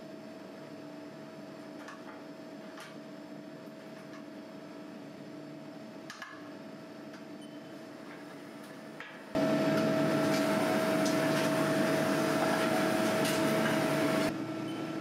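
Haas ST-40 CNC lathe running, a steady hum with a whine; about two-thirds of the way in it gets suddenly much louder and noisier for about five seconds, then drops back.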